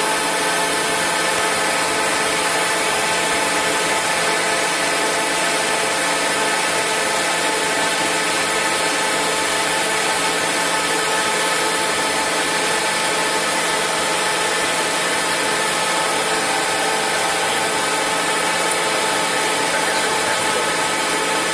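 A CNC lathe cutting a metal velocity stack: the spindle runs and the tool cuts steadily, making a constant mechanical noise with several steady whining tones.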